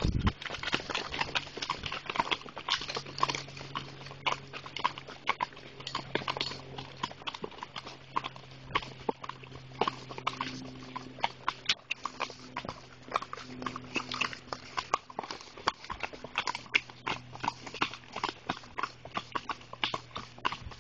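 Hooves of ridden horses clip-clopping on a dirt road, an uneven run of many sharp hoofbeats.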